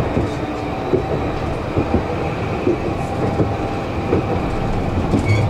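Kraków tram running along its track: a steady low rumble of wheels on rail with irregular knocks. A short high beep sounds just before the end.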